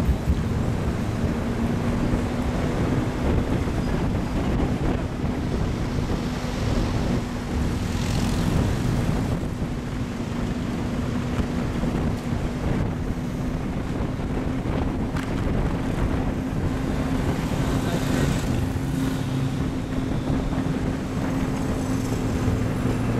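Wind rushing over the microphone of a camera carried on a moving bicycle, with street traffic and a steady low engine hum underneath, and a few stronger gusts.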